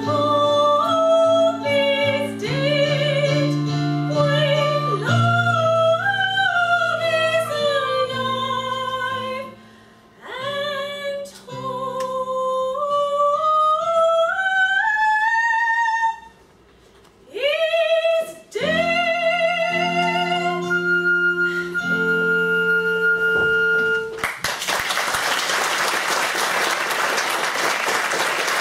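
A young woman sings an operetta solo with instrumental accompaniment. Her voice wavers with vibrato and climbs to one long held high note. An audience starts applauding about four seconds before the end.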